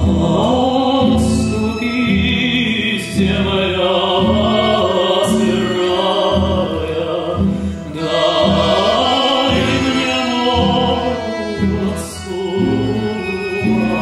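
A man singing a slow Russian folk song live, with a button accordion holding sustained chords beneath the voice.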